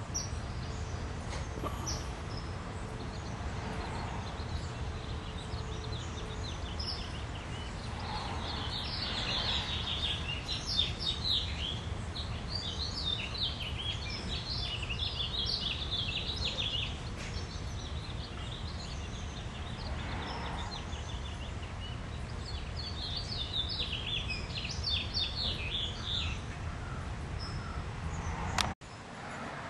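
Small birds chirping and calling in quick high clusters, busiest in two stretches, over a steady low background hum; the sound breaks off abruptly near the end.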